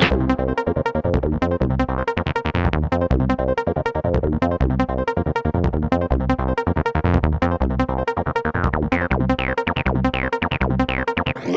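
Electronic background music with a fast, steady beat and synthesizer tones.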